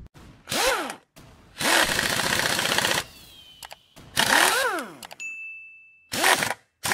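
Sound effects of a subscribe-button animation: firework whistles that rise and then fall, long crackling bursts of fireworks, and a short ringing notification ding about five seconds in.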